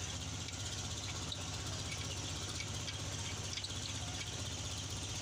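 A truck engine idling steadily, an even low hum.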